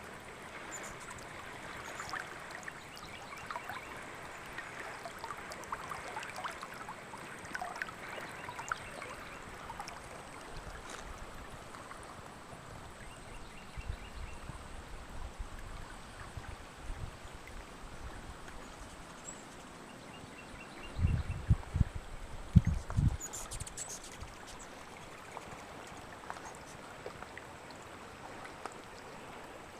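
River water running steadily. A few loud low thumps come about two-thirds of the way in.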